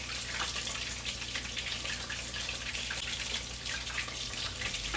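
Chicken wings deep-frying in hot oil, a steady sizzle dotted with small crackles.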